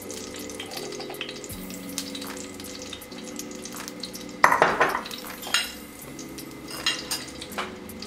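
Cooking oil heating in a stainless steel sauté pan on a gas burner, crackling and spitting lightly, with a louder spit about four and a half seconds in.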